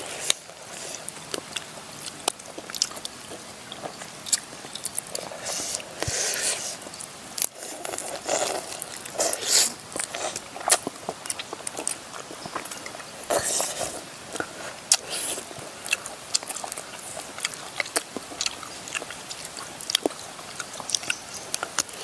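A person chewing and biting into spicy stewed wild-bird meat (rica-rica of koak and ruak-ruak), with many irregular short clicks and smacks and a few noisier crunching spells.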